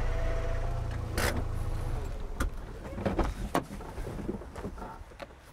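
A car engine running low and steady, switched off about two seconds in, followed by a series of sharp clicks and knocks as the driver's door is opened and the driver climbs out.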